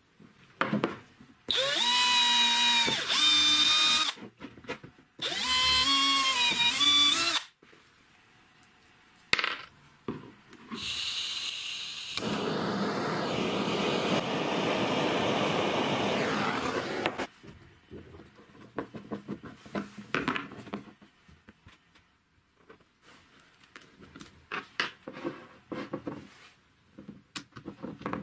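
A small power drill runs in two bursts of two to three seconds each, its pitch dipping under load. About ten seconds in a gas torch starts hissing for around six seconds, then come light clicks and knocks of handling plastic pipe fittings.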